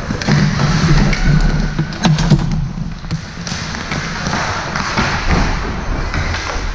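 Thuds and a few sharp knocks from play over a steady, noisy hall din, with a cluster of knocks about two seconds in.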